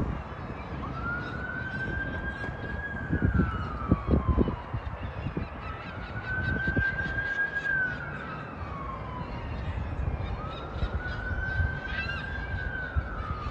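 A siren wailing: three slow cycles, each rising, holding its pitch, then sliding down. Low rumbling thumps come in around three to four and a half seconds in.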